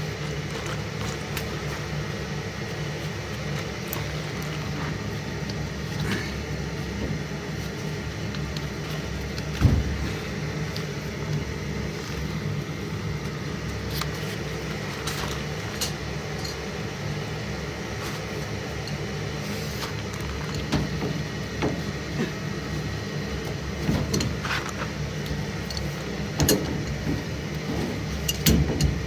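Steady mechanical hum of a running furnace, with scattered clicks and knocks of parts and tools being handled; one louder knock about ten seconds in.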